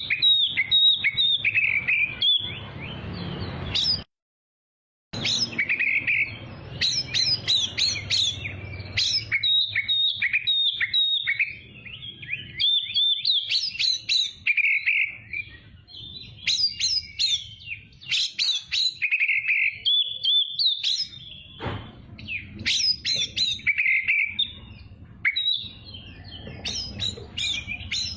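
Oriental magpie-robin (kacer) singing continuously: a fast, varied run of clear whistles, chirps and trills, with a break of about a second of complete silence around four seconds in.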